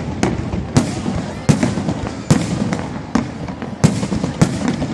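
Fireworks display: sharp bangs of bursting shells come irregularly, roughly every half second to a second, over a steady background rumble and crackle.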